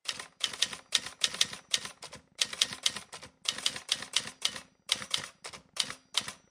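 Typewriter keys clacking as a sound effect for text being typed out letter by letter, a rapid series of sharp keystrokes in quick runs broken by short pauses.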